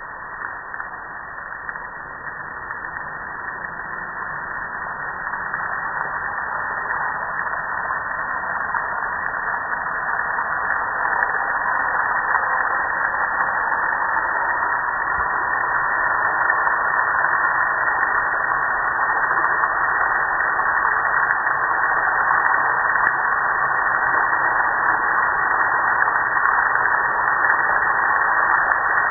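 Water spraying onto a gas grill's lid and metal panels: a steady hiss that grows gradually louder over the first dozen seconds, then holds.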